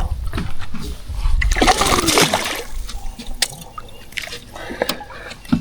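Water splashing, loudest for about a second around two seconds in, with a few sharp clicks later on.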